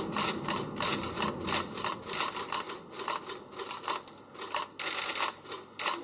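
Low rumble of concrete office tower blocks collapsing in a controlled demolition, dying away within the first two seconds. Throughout, a run of short, irregular crisp clicks and rasps sounds close by, several a second.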